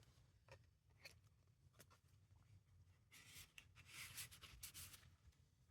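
Faint rustling and scraping of paper and card as a card is slid into a paper pocket of a handmade journal, with a few light ticks early on and a longer rustle from about three seconds in.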